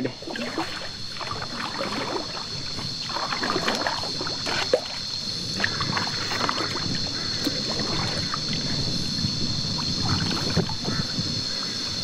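Kayak paddles dipping and splashing irregularly in river water as the kayak is paddled along, with a steady high-pitched drone behind.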